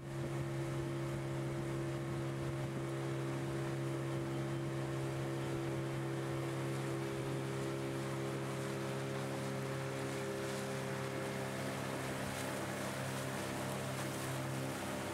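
Motorboat engine running steadily under way, a constant hum over the rush and splash of water along the hull.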